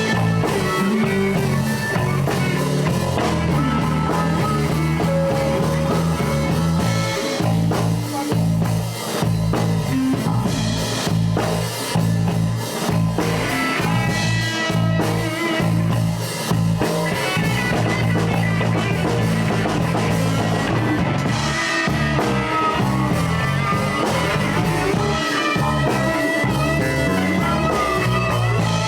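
Live blues band playing an instrumental section: electric guitar soloing over bass and drums keeping a steady beat.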